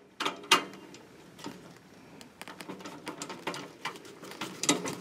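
Small irregular clicks, taps and scrapes of a sheet-metal cover plate and its screws being fitted to the heater's wiring compartment, with one sharper metallic click about half a second in.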